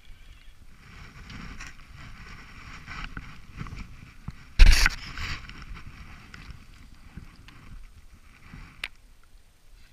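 Rustling handling noise from clothing and gloves moving against a body-worn camera as the wearer turns and walks. One loud knock comes about halfway through, and a sharp click near the end.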